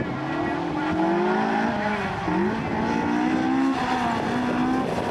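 Gymkhana competition car's engine revving hard through the course. The pitch climbs, drops sharply about two seconds in, then climbs again and holds high.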